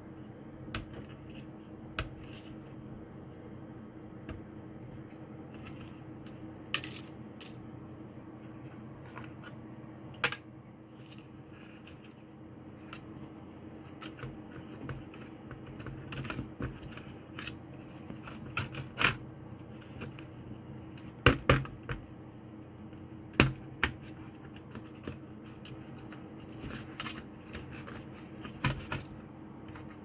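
Scattered small plastic and metal clicks and light knocks from hands working on a laptop motherboard: ribbon-cable connector latches being flipped and flat cables and parts being handled, with a quick cluster of louder knocks a little past two-thirds of the way through. A faint steady hum lies underneath.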